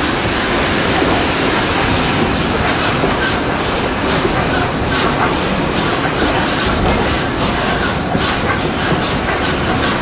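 A steam train hauled by SAR 620-class 4-6-2 locomotive 621, running with a steady heavy rumble. From about two seconds in, a regular sharp beat of roughly three a second comes through.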